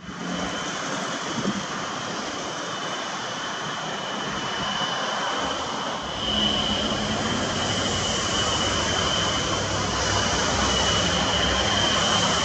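MiG-29 jet engines (RD-33 turbofans) running up to high power on the ground, a steady jet whistle over a wide roar; the low rumble grows louder about six seconds in.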